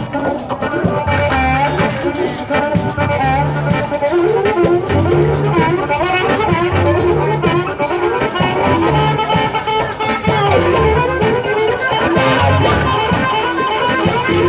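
Live blues band playing: an amplified harmonica leads with bending, wavering notes over bass, drums, electric guitar and keyboard.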